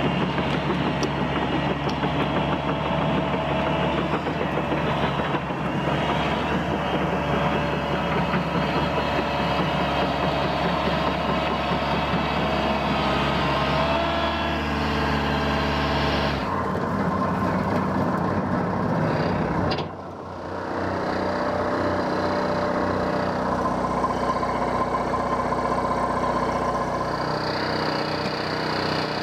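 Engine of a tracked, remote-controlled forestry winch running steadily, its pitch wavering a little. The sound changes about 16 seconds in and drops briefly about 20 seconds in.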